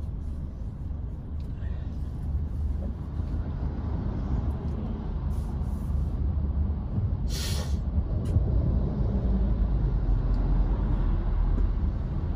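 Steady low rumble of a car's engine and tyres heard from inside the cabin while driving in traffic. Two brief hisses come about halfway through.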